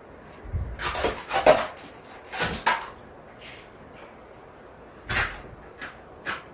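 Objects being handled on a tabletop: a run of knocks and scraping clatter in the first few seconds, then three short knocks near the end.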